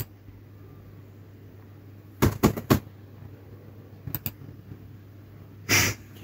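Faint steady low hum of a quiet room, with a few sharp clicks: three together about two seconds in, two more about four seconds in. A short louder noise comes near the end.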